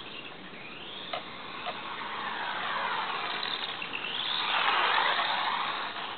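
Brushless electric motor of a Losi Micro Highroller RC truck whining as it drives, its pitch sweeping up and down with the throttle. The whine grows loudest about four to five seconds in, with a couple of faint ticks about a second in.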